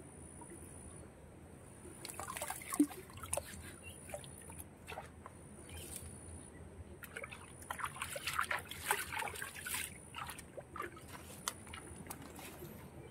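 Hands sloshing and splashing in a shallow pool of muddy water while groping through the mud, in two spells of splashing: one about two seconds in and a longer one from about seven to ten seconds in.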